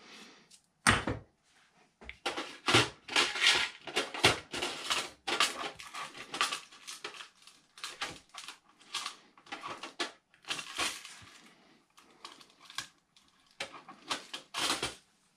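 Rummaging in a plastic small-parts drawer cabinet: a run of irregular clicks and clatters as drawers are worked and small parts rattle inside them.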